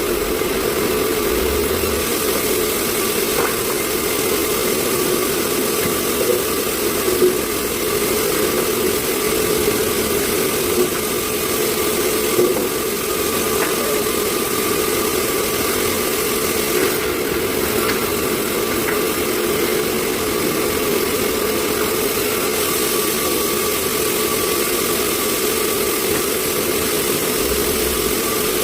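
Sawmill machinery running steadily, an even engine-like drone with no change in speed, with a few faint knocks.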